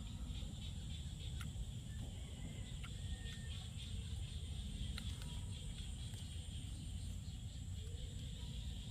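Steady rain ambience in a forest: a low rumble under a high hiss, with scattered faint ticks of drops.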